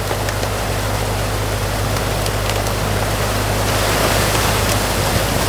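Excavator engine running steadily under the rush of water pouring through a breached beaver dam. The water grows a little louder about two-thirds of the way in.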